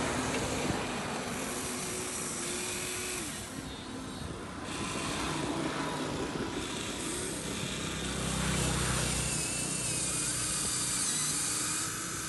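Small electric motors of a radio-controlled excavator whining as the boom, arm and bucket move, the whine rising and falling in pitch as each movement starts and stops.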